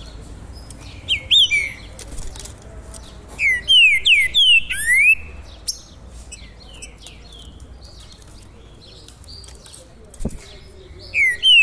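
Caged all-black songbird singing: bursts of loud whistled notes that sweep up and down, one phrase about three and a half seconds in and the same phrase again near the end, with shorter, softer notes between. A single low thump about ten seconds in.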